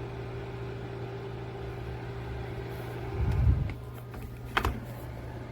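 Portable PTC ceramic space heater's fan running with a steady hum, its tone cutting off about three seconds in with a low thump, then a sharp click a second later. The tipped-over heater's tip-over safety switch is shutting it down.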